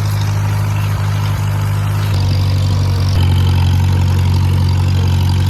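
Farm tractor engine running steadily while pulling a hay rake, getting louder in two steps about two and three seconds in.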